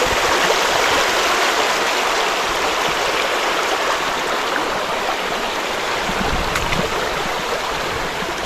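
Creek water running steadily, a constant rushing hiss, with a low rumble joining about six seconds in.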